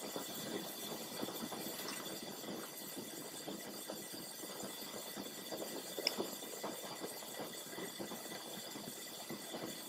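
Pressurised kerosene vapour burner (Kitson-type 55 mm mantle burner) burning as an open Bunsen flame without its mantle, with a steady, flickering rush. The vaporiser is fully heated and the flame is blowing off the top gauze, the stage at which the mantle is fitted. A small click about six seconds in.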